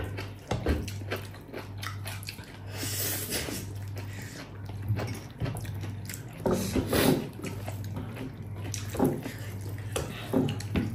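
A person eating a meal of rice with saucy pork trotter pickle close to the microphone: irregular wet chewing and slurping sounds. A steady low hum runs underneath.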